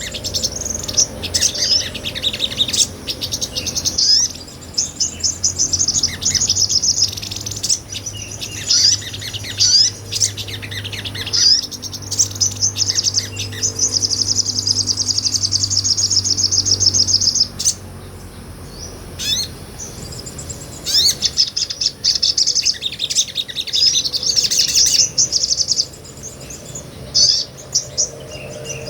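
Sogon, a small nectar-eating bird, singing in long runs of rapid, high trills and chattering notes, broken by a few short pauses in the last third.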